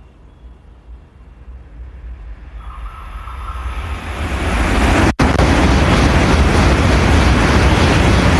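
N700-series Shinkansen passing through the station at speed without stopping: a rushing noise that builds as the train approaches, then a loud steady roar as the cars sweep past, cutting out for an instant about five seconds in.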